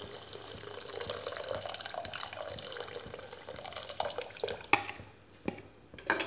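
Cornflour slurry poured in a thin stream into boiling chicken soup, the liquid splashing and bubbling into the pot. A metal spoon clinks three times in the second half.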